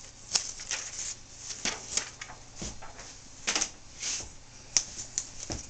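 Protective plastic film being peeled off a new laptop LCD panel: irregular crackling and rustling, with one sharp click a little before the end.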